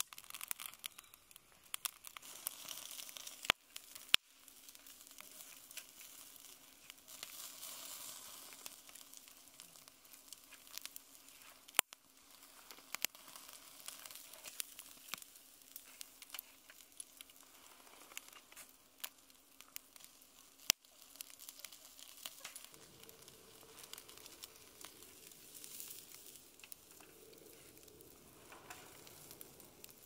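Wood campfire burning: constant crackling and a hiss from the logs, with a few sharp pops from the firewood.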